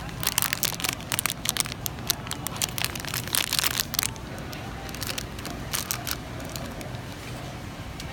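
Plastic candy wrapping crinkling and crackling as it is handled: a dense run of crinkles for about four seconds, then only a few scattered ones, over a steady low hum.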